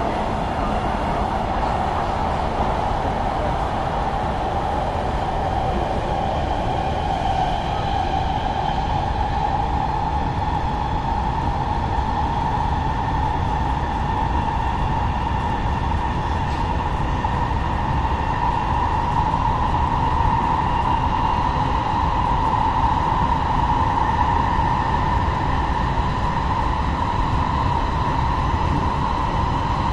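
Los Angeles Metro Rail train running along the track: a steady rumble with a whine that rises a little in pitch partway through.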